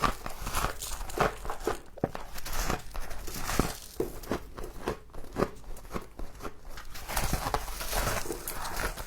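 Close-miked biting and chewing of frost: rapid, irregular crunching and crackling in quick clusters with short pauses between bites.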